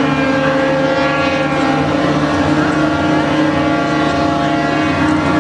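Many ship horns sounding together in one long, steady chord of several pitches.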